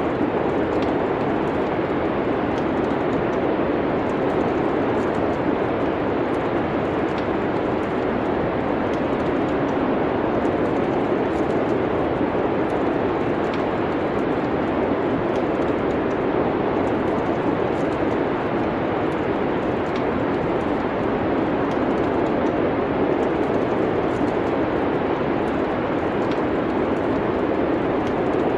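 Steady wind noise of a snowstorm, with faint scattered crackles of a wood fire in a fireplace.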